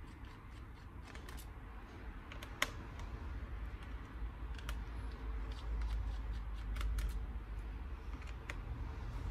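Irregular small clicks and ticks of a Phillips screwdriver working out the battery screws of a laptop's plastic-and-metal chassis, with one sharper click about two and a half seconds in.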